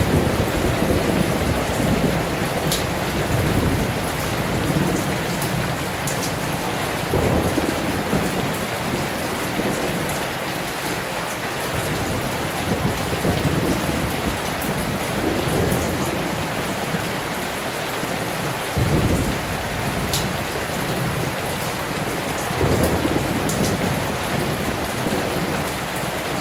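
Heavy steady rain heard from indoors, with low rumbling surges every few seconds from the heavy wind and storm, and a few sharp drip ticks.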